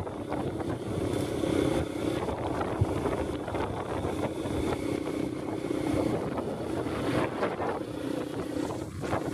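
Small motorcycle engine running at a steady cruising pace on a rough dirt track, with wind buffeting the microphone.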